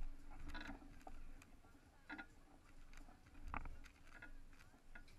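Faint outdoor ambience: scattered soft ticks and knocks, with a sharper knock about three and a half seconds in, a few brief faint distant calls, and a low rumble underneath.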